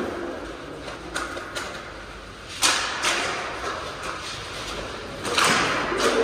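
Inline hockey play on a plastic tile rink: sharp clacks of sticks and puck, the loudest about two and a half seconds in, then a short rushing burst near the end as players crowd the goal.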